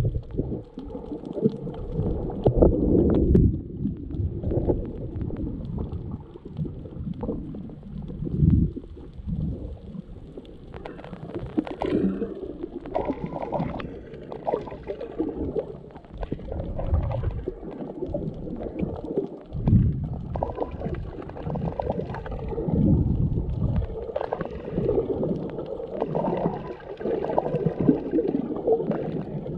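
Muffled underwater sound of moving water, heard from a submerged camera: low, uneven rumbling that swells and fades every few seconds, with scattered faint clicks.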